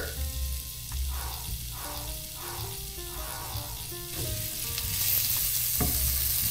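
Chopped bacon frying in butter in a pan: a steady sizzle that grows louder about five seconds in.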